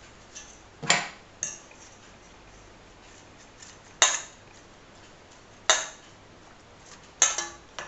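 A kitchen utensil knocking against a saucepan of just-boiled water: about six sharp clinks, each ringing briefly, spaced irregularly with a quick pair near the end.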